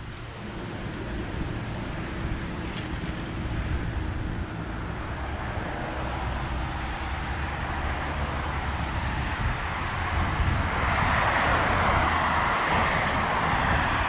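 Road traffic: cars driving past on a city street, their tyre noise growing louder from about eleven seconds in.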